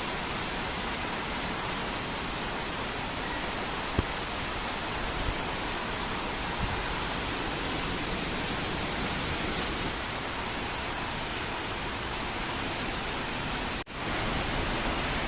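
Heavy rain pouring steadily in a storm: a dense, even hiss of rainfall. There is one sharp click about four seconds in, and the sound cuts out for an instant shortly before the end.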